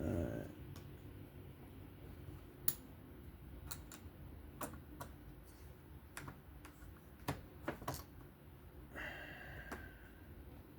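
Scattered light clicks and taps, about a dozen at irregular intervals, from small parts of a folding knife being handled and set down during disassembly and reassembly, with a short scratchy rub near the end.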